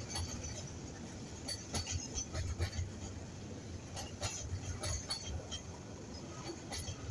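Container freight train's loaded flat wagons rolling past at low speed: a steady low rumble of wheels on the rails with frequent irregular metallic clicks and clanks.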